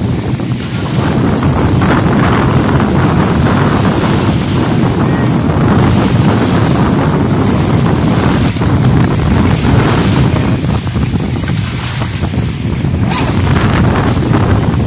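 Wind buffeting the microphone with small waves lapping at the shore. A radio-controlled model speedboat runs out on the lake, faint under the wind.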